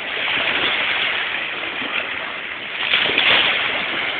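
Small lake waves washing onto a stony shore, a steady rush that grows a little louder about three seconds in.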